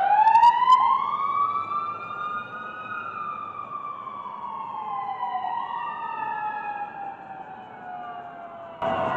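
A siren wailing: it rises quickly to a high pitch, then falls slowly and steadily over several seconds. It is loud, and a few brief clicks come near the start.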